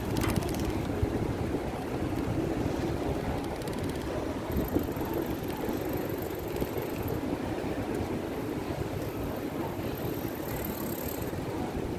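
Steady low rumble and noise of a bicycle being ridden along city paving.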